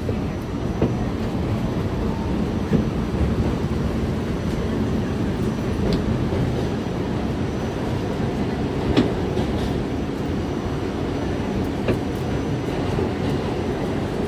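New York City Subway A train running, heard from inside the car: a steady low rumble of wheels and running gear on the track, with a few sharp clacks.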